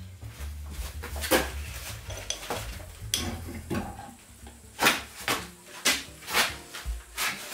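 Metal clanks and knocks as an old electric mill drive motor is handled and lifted off its steel mounting plate: a run of irregular sharp knocks, the loudest in the second half.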